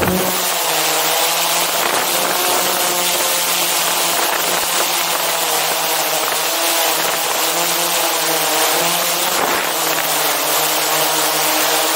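Quadcopter drone's electric motors and propellers whining close to the microphone, a steady buzzing tone whose pitch wavers slightly as the drone holds position, over a steady hiss.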